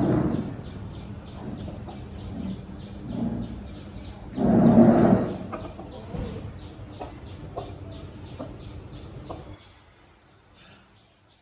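Chickens clucking, with one loud call about four and a half seconds in, over a fast, regular, high chirping; the sound drops away suddenly near the end.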